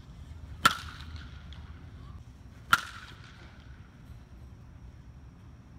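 Two sharp pings of a metal baseball bat striking pitched balls, about two seconds apart, each with a short ring after contact.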